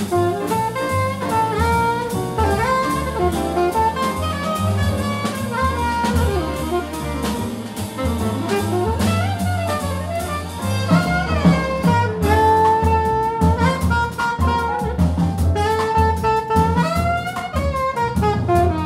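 Live jazz: a saxophone plays a fast, winding melodic line over drum kit with cymbals, double bass and piano, with strings behind.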